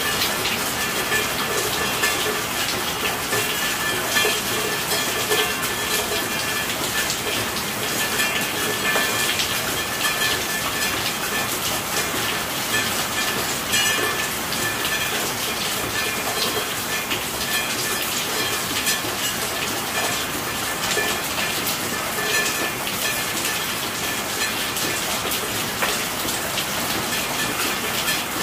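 Steady rainfall, a dense even hiss of many drops striking a surface, with no let-up.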